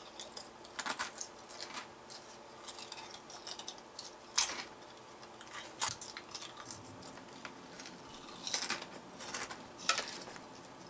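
Barcel Fuego chili-and-lime chips being bitten and chewed, heard as irregular sharp crunches a second or more apart over quieter chewing.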